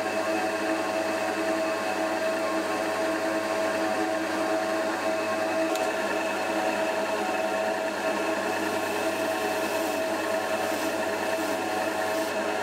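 Drill press running at steady speed, a continuous machine hum with several fixed tones, while oak is worked at the chuck. A brief click comes about six seconds in.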